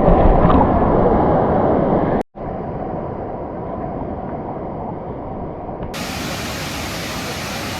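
Kravica waterfall's falling water rushing steadily, broken by a brief dropout about two seconds in.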